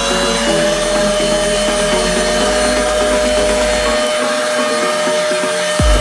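Adler AD 7044 cordless handheld vacuum running with a steady motor whine, under background music. A beat with deep kick drums comes in near the end.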